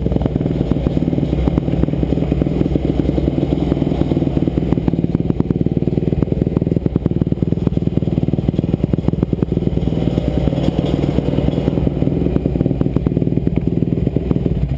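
2007 Kawasaki KX250F dirt bike's four-stroke single-cylinder engine running at a steady speed.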